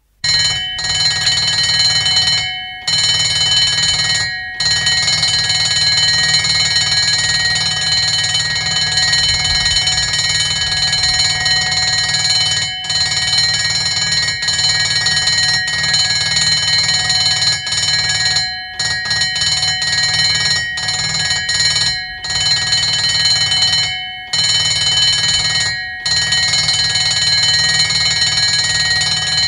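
Bedford ambulance's bell, heard close up, ringing continuously. It stops briefly several times, ringing out each time before it starts again.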